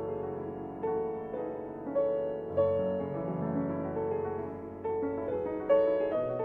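Background piano music, with new notes struck roughly once a second and left ringing.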